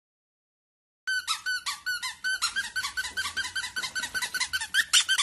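Rapid, regular run of short high squeaks from a squeaker, about five a second and all at much the same pitch, starting about a second in.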